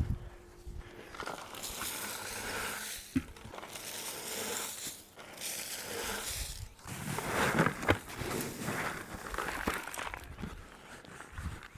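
Wood-chip mulch rustling and crunching in several bursts as it is tipped out of a bucket and spread along a garden path.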